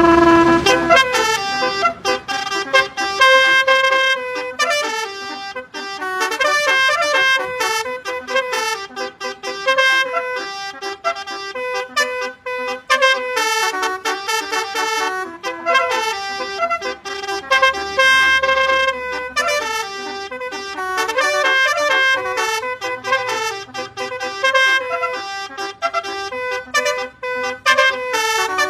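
Basuri telolet horn, a multi-tone bus horn, playing a fast melody of short pitched horn notes.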